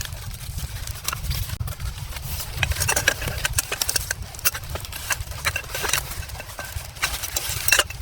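Blizzard wind buffeting the microphone with a steady low rumble, over a run of irregular sharp knocks and rustles. The loudest knock comes near the end.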